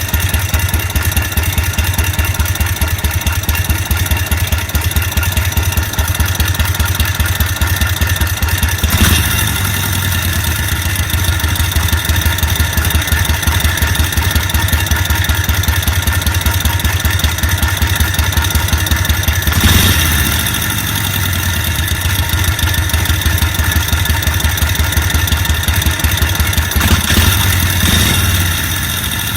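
Side-valve (flathead) engine running at idle with a steady rhythmic beat and a brief rev three times. It is being recorded for an abnormal noise; the owner reports that compression has dropped and oil returns poorly.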